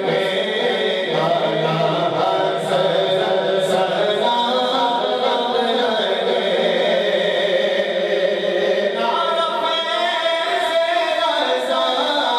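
A naat, an Urdu devotional song, sung a cappella, with several voices singing together in chorus.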